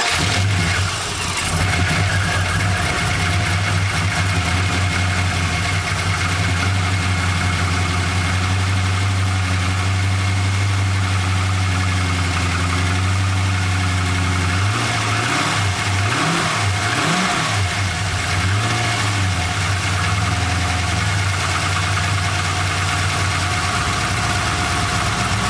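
Holden R8 Clubsport's 5.7-litre LS1 V8 with a new Comp Cams camshaft, just fired up and running at a steady idle. For several seconds around the middle the revs wander up and down before they settle again. The engine does not want to idle yet: its computer is relearning after the cam swap.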